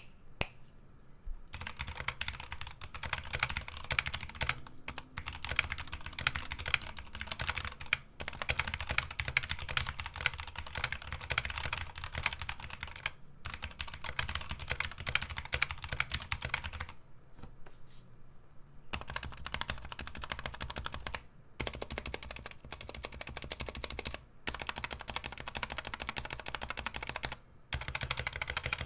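Fast typing on a Redragon K617 Fizz mechanical keyboard with Redragon Red linear switches and stock keycaps and stabilizers: a dense run of key clacks that starts about a second and a half in, broken by a few short pauses.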